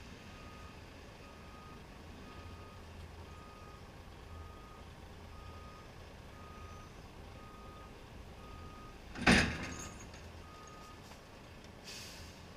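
Truck's reversing alarm beeping at an even pace, a little under two beeps a second, over the low running of the diesel engine. A single loud clack comes about nine seconds in, the beeping stops soon after, and a short hiss follows near the end.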